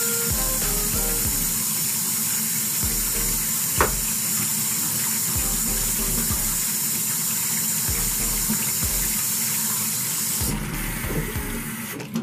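Water tap running steadily into a utility sink as a wig is rinsed under it; the running water stops about ten seconds in.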